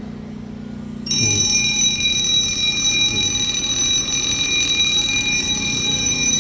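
The sounders of a Zeta conventional fire alarm system switch on about a second in and keep sounding a steady, loud, high-pitched alarm. The system has been triggered from a manual call point as a test.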